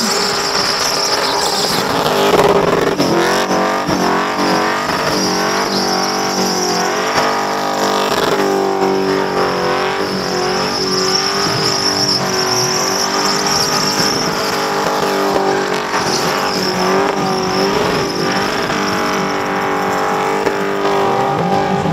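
Holden Commodore burnout car's engine held at high revs, the revs rising and falling again and again, with the rear tyres screeching steadily as they spin against the track.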